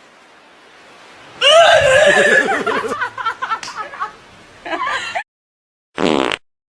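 A person laughing in pulsing bursts that start about a second and a half in and last a few seconds, then a short loud vocal sound near the end that cuts off abruptly.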